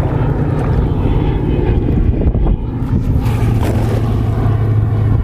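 Wind buffeting the microphone in a steady low rumble while a cast net is thrown, with a light splash about four seconds in as the net lands on the water.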